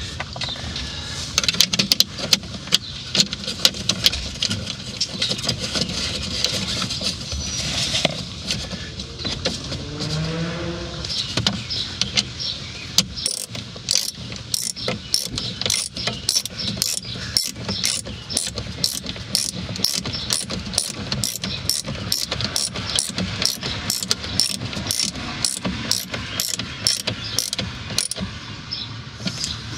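Plastic dash trim being handled, with scattered clicks and snaps as pieces are fitted. Then, from about halfway through, a steady, even mechanical clicking at about two clicks a second.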